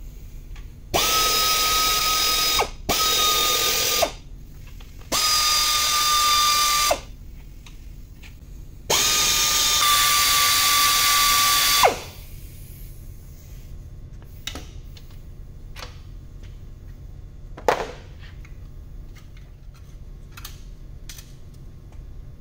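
Pneumatic wrench on an air hose running in four bursts of one to three seconds each, a steady high whine, as it unfastens bolts on the engine being torn down. Afterwards come scattered clinks and knocks of tools and parts, the loudest a sharp knock about three quarters of the way in.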